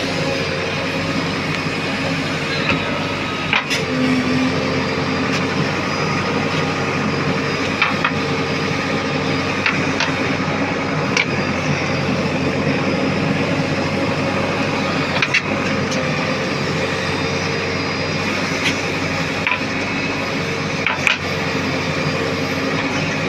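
JCB backhoe loader's diesel engine running steadily under work. A few sharp metallic clanks come through now and then.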